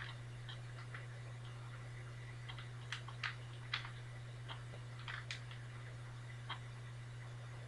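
A plastic 3x3 Rubik's Cube being twisted by hand: irregular, faint clicks and clacks as its layers turn, with the loudest few about three to four seconds in. A steady low hum runs underneath.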